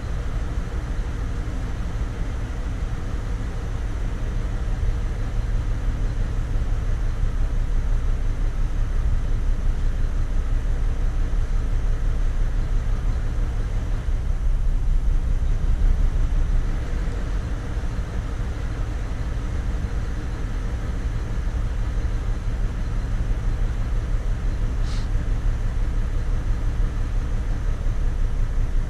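The 2004 Chevrolet TrailBlazer's 4.2 L Vortec inline-six engine running steadily, a continuous low rumble that swells slightly now and then.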